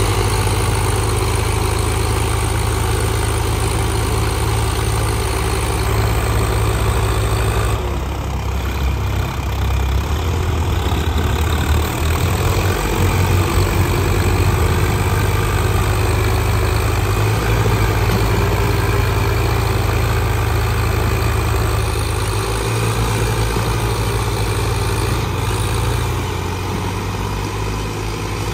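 Diesel tractor engines running steadily, with a shift in the engine note about eight seconds in.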